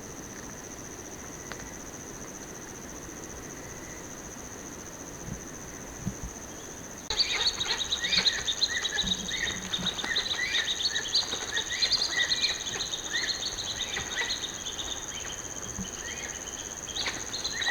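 Forest insects keep up a steady high-pitched drone. About seven seconds in, a dense chatter of rapid bird chirps starts suddenly over it and keeps going.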